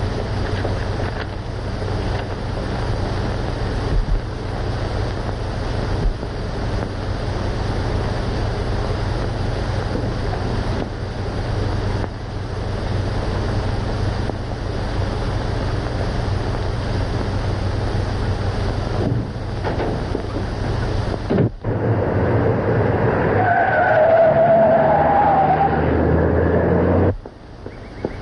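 Steady hiss and low hum of an old optical film soundtrack, with no speech. About twenty seconds in it changes abruptly to a louder stretch with faint wavering tones, then drops again near the end.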